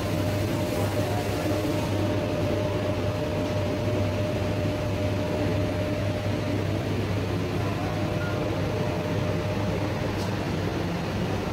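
Steady low mechanical hum of indoor room noise, with a faint steady whine over it that fades out about nine or ten seconds in.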